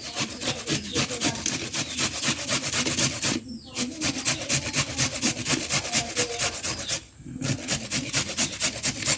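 Fresh turmeric root being grated on a hand grater: quick, even scraping strokes, about five a second, with two brief pauses.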